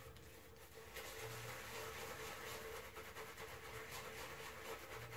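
Semogue shaving brush scrubbing lather of tallow shaving soap on a face, a soft wet scratchy swishing of bristles on stubble, getting louder about a second in.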